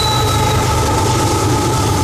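Freight train rolling past with a steady low rumble from the cars and a high, steady wheel squeal of two tones.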